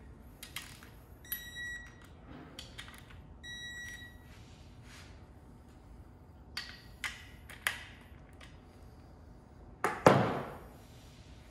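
Metal tool handling with a click-type torque wrench: a few light clicks and ringing metallic pings, then the wrench set down on a metal workbench with a loud clank about ten seconds in.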